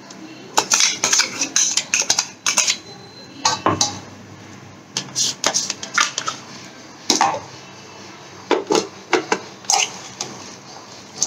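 Metal spoon clinking and scraping against a stainless-steel bowl and mixer-grinder jar in an irregular string of sharp clinks, as ginger-garlic-chilli paste is scraped out onto raw chicken and mixed in.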